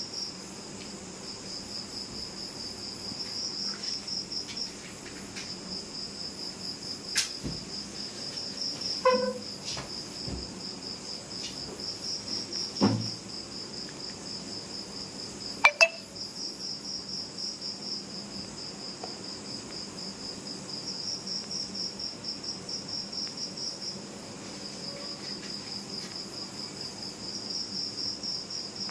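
Crickets chirping in a continuous fast pulsing trill that swells and fades every few seconds. A few sharp clicks and knocks stand out, the loudest a quick double click about two-thirds of the way through.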